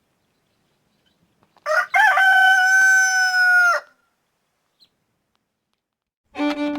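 A rooster crowing once, a short opening note and then a long held note, about two seconds in all. Music starts near the end.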